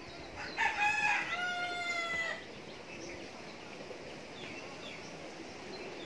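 A rooster crows once, starting about half a second in and lasting nearly two seconds, its pitch dropping slightly at the end.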